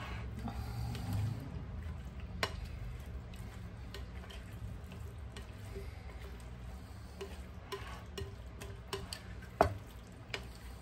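Greek salad being mixed in a bowl with utensils: a soft stirring rustle broken by scattered clicks and taps of utensil against bowl, the sharpest tap near the end, over a low steady hum.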